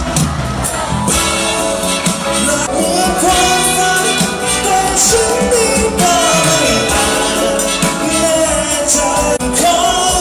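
Live band music over a PA, with a horn section of trumpets and saxophones and an electric bass behind a male singer.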